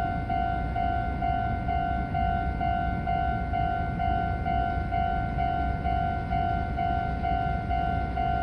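Railway level-crossing warning alarm ringing its repeated single-pitch chime, a little over two rings a second, with a steady low rumble underneath.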